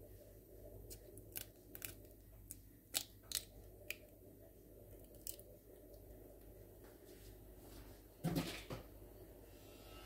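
Quail egg shell being cracked and picked open by fingers: a run of small sharp cracks and clicks. About eight seconds in comes a short, duller knock.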